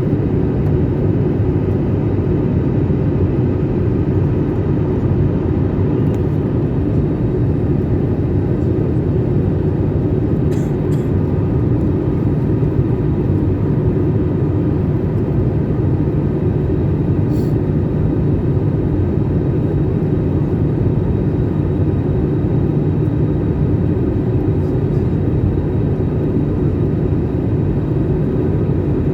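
Airliner noise: a steady, even low drone of engines and rushing air, with a few faint clicks.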